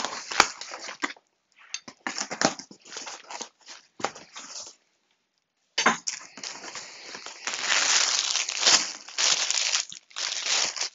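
Cardboard box being opened: a knife cutting through the packing tape and the cardboard flaps scraping and being pulled back, with a brief pause. Then the clear plastic bag around a folded blanket crinkles loudly as the blanket is lifted out.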